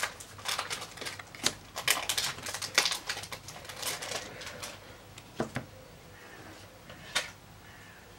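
Foil wrapper of a Pokémon booster pack crinkling and crackling as it is torn open, busy for about five seconds, then a few separate sharp clicks as the handling slows.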